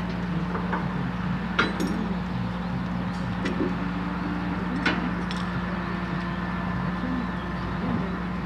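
Diesel engine of a Liebherr LTM 1500 mobile crane running steadily with an even hum. A few sharp metallic clinks sound over it, the loudest about one and a half and five seconds in.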